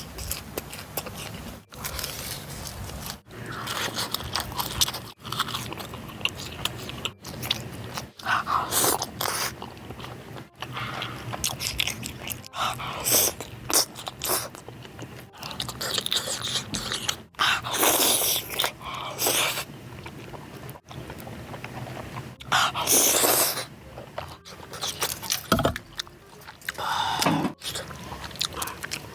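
A person eating spicy Korean food close to the microphone: repeated biting, chewing and crunching sounds, broken by brief gaps every second or two.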